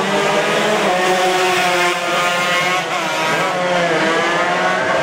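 Yamaha RX-King two-stroke racing motorcycles, bored to 140 cc, running at race pace, several engines heard at once. Their pitch rises and falls as the riders roll off and open the throttle again.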